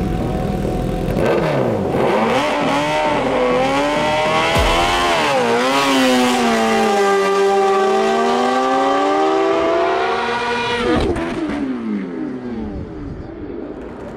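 Two racing motorcycles, one a Bimota Tesi H2 with its supercharged Kawasaki inline-four, launch side by side in an eighth-mile sprint about a second in. Engine pitch climbs through the gears, dipping sharply at each upshift. About eleven seconds in the engines shut off and the sound falls away.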